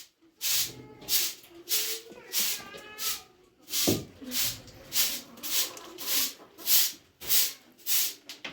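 Rhythmic brushing strokes, each a short swish, about one and a half a second and steady.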